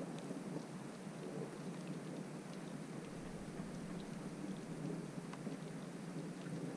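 Steady rain, an even hiss with scattered drops ticking.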